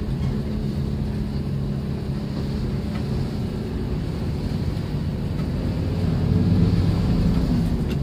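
Coach bus engine and road noise heard from inside the cabin while driving, a steady low rumble. The engine note grows louder from about six seconds in.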